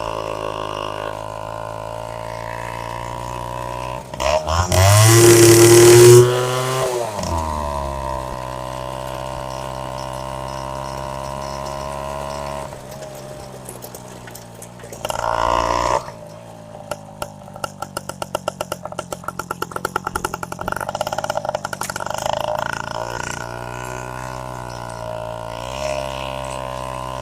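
Bajaj M80's single-cylinder two-stroke engine idling. About five seconds in it is revved hard, rising then dropping back, and it is blipped briefly again about halfway through. After that it runs with a rapid, uneven pulsing before settling back to a steady idle.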